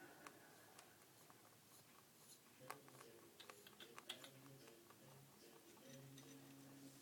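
Faint, irregular crisp clicks of a Lionhead Lop rabbit chewing its food, bunched together about three to four seconds in, with a faint low hum coming and going later.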